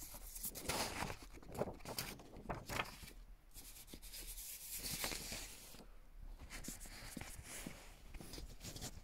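Soft, irregular rubbing and rustling with scattered faint clicks: fingers and fabric moving against a handheld phone as it is shifted about.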